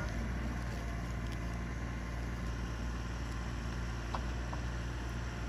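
Excavator's engine running steadily with a low, even drone.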